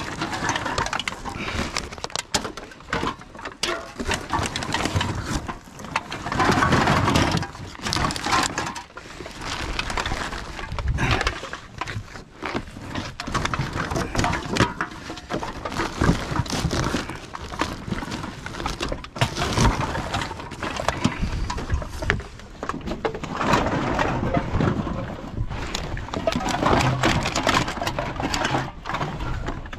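Empty aluminium drink cans and plastic bottles clinking, clattering and crinkling as they are handled and tipped into a bulk bag, with rustling of the bag and the cardboard box.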